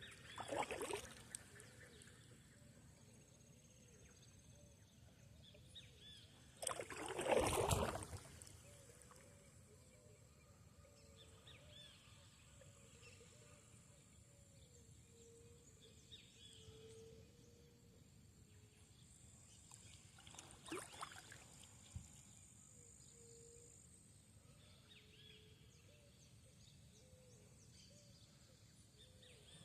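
Outdoor nature ambience at the water's edge. Short low calls from an animal repeat steadily, and a few louder noisy bursts come through, the loudest about seven seconds in.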